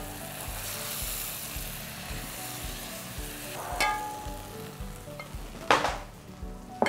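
Chicken and peppers sizzling in hot oil in a frying pan as they are scooped out with a wooden spatula. A few sharp knocks of the utensil come through, the loudest about two-thirds of the way in.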